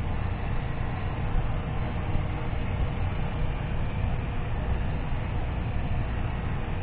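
Sky Viper E1700 mini quadcopter's motors and propellers buzzing steadily in flight, over a low rumble.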